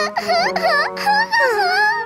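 A cartoon girl's voice crying in short, wobbling whimpering sobs, over background music.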